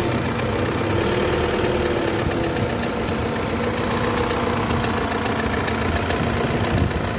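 Isuzu 4JJ1 four-cylinder diesel engine running with a rapid, regular knock. The knock comes from a broken crankshaft main bearing cap.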